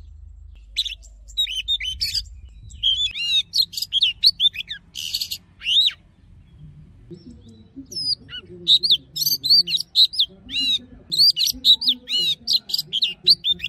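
Oriental magpie-robin singing: quick runs of clear whistled notes and slurs with one harsh rasping note. It pauses for a couple of seconds about halfway through, then resumes.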